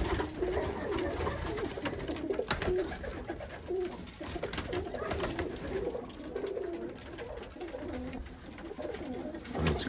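Several domestic pigeons cooing at once in an enclosed wooden loft, their low, wavering coos overlapping without a break, with a few sharp clicks among them.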